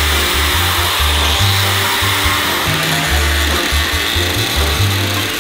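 Angle grinder with a cut-off disc cutting steadily through a car's painted wheel-arch body panel, a continuous high grinding whine, to open the arch for a wide-body kit. Background music with a bass line plays underneath.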